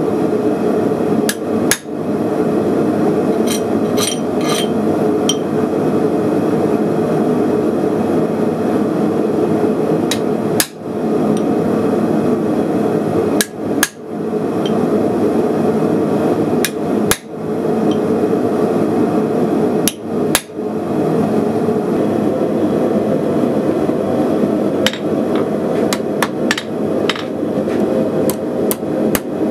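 Hammer blows on a steel hand punch driven into a hot knife blade on an anvil, single sharp strikes several seconds apart. Near the end comes a quicker run of hammer blows on hot steel on the anvil. A steady loud rushing noise runs underneath.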